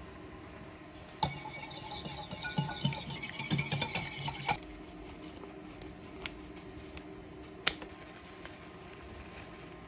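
Small metal whisk rattling and clinking against a ceramic bowl as egg is beaten, starting about a second in and lasting about three seconds. Later a single sharp click.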